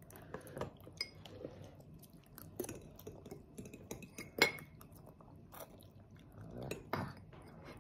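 A toddler chewing spaghetti, with a metal fork clicking and clinking against a ceramic bowl; one sharp clink about four and a half seconds in is the loudest sound.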